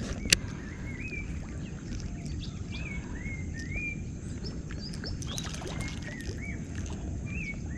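Wild birds calling in a run of short, repeated chirps that rise and fall in pitch, over a steady low rumble of outdoor ambience. A single sharp click sounds about a third of a second in.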